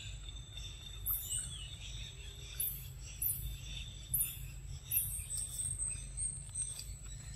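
Forest ambience: a steady high-pitched insect drone, with short, very high chirps repeating every second or so, over a low rumble.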